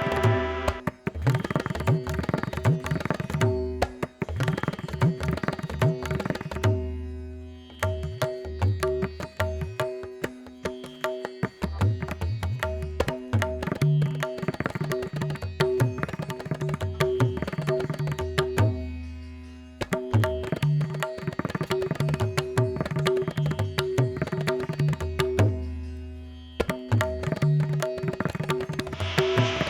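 Background music: fast hand-drum strokes over a steady held drone, with the bass dropping out briefly a few times.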